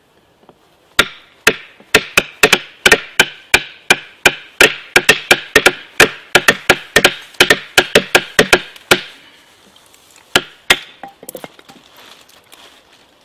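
Two wooden batons striking the spines of two fixed-blade bushcraft knives driven down through wood on a stump (batoning). The knocks come fast and unevenly, about three or four a second, from about a second in until about nine seconds, then a few single strikes follow.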